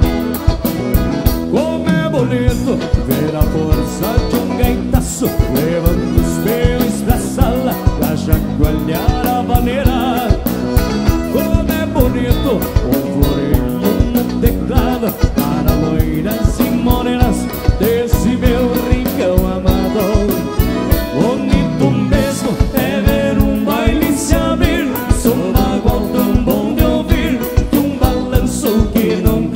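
Live dance-band music from two accordions, electric guitar, bass and a drum kit, with a steady, fast beat.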